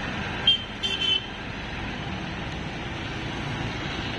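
Pick-and-carry crane's diesel engine running steadily as it travels with a hanging tank. Two short, high horn toots sound about half a second and one second in, louder than the engine.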